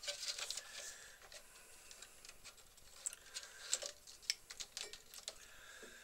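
Faint scattered small clicks and light rustling as hands handle a pair of side cutters and a length of heat-shrink tubing.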